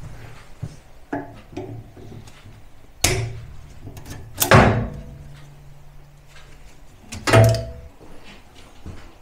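Irregular knocks and clunks of metal as an old gas stove is being taken apart and handled, with three loud bangs, the loudest about four and a half seconds in and the last ringing briefly.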